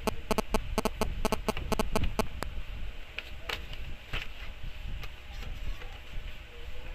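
Buttons on a Nokia 150 feature phone's keypad pressed in quick succession, about fifteen short clicks in the first two and a half seconds. Then scattered plastic clicks and scrapes as the phone's back cover is prised off.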